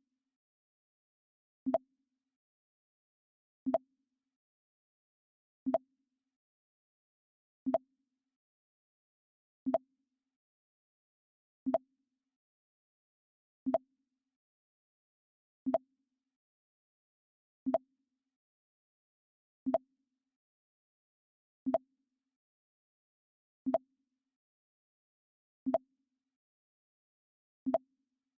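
Mac OS X 'Pong' alert sound, a short low blip repeated about every two seconds, each one identical and separated by silence.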